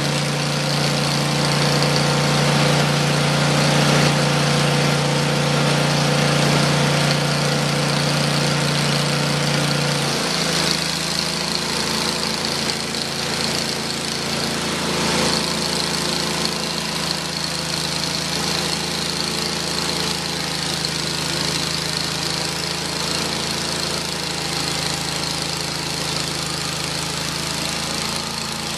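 Engine of a Hud-Son Oscar 36 band sawmill running steadily. About a third of the way in its note drops and roughens as the band blade goes into the soft maple log, with the hiss of the blade cutting the wood over it.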